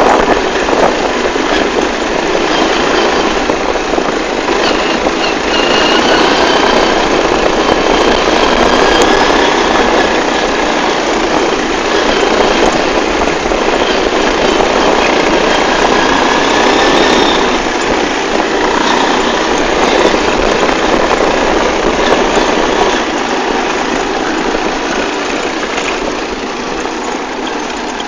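Linhai ATV single-cylinder engines running on the move, heard from the seat of one of the quads. The engine pitch rises and falls as they speed up and ease off.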